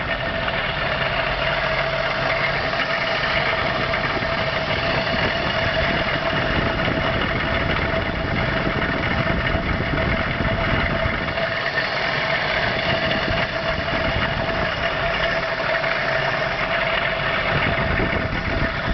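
BMW engine idling steadily, with a constant high tone running through the engine sound: the weird noise the owner is recording.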